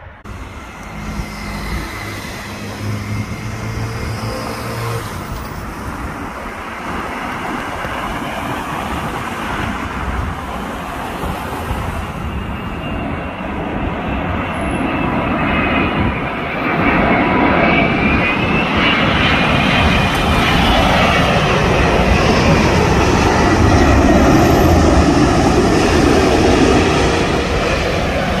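Airbus A380's four jet engines on landing approach, growing steadily louder as the airliner passes low overhead, loudest near the end. A high engine whine rises and falls in pitch over the roar.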